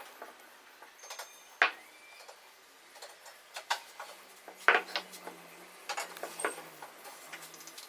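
Irregular light clicks and knocks of wooden pieces being handled and fitted together, a few sharp taps spread over several seconds.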